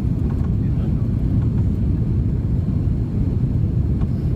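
Steady low rumble of an Airbus A330-300 heard inside the cabin, the even mix of engine and airflow noise.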